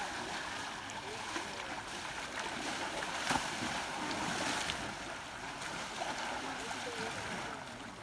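Steady rush of a shallow river flowing and lapping around wading elephants, with one sharp click about three seconds in.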